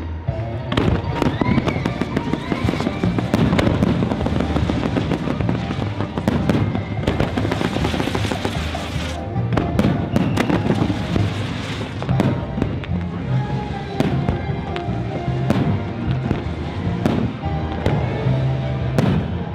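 Fireworks bursting in a steady barrage of sharp bangs and pops, over loud music from the show's soundtrack.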